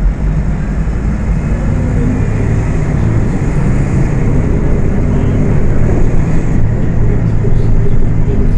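Volksbus 18.280 OTS city bus's rear-mounted diesel engine running under way, a steady low drone whose note rises through the middle as the bus picks up speed.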